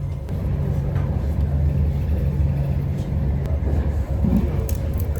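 Steady low rumble of a vehicle in motion, with a faint steady hum and a few light clicks.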